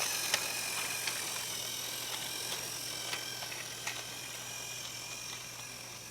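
Motorized toy train's small electric motor whirring steadily with a high whine and scattered faint clicks, fading as it runs away along the track.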